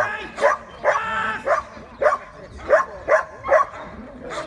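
Police-trained working dog barking at a decoy in a bite suit, short sharp barks repeated about two a second, as the dog guards the motionless helper in a KNPV bark-and-hold exercise.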